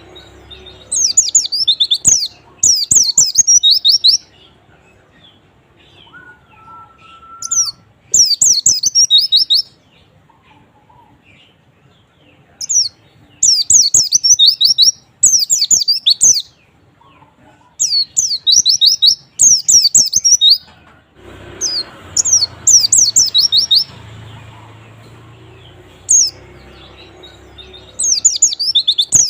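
White-eye (pleci) singing: bursts of rapid, high twittering phrases, each about a second or two long, repeated every few seconds.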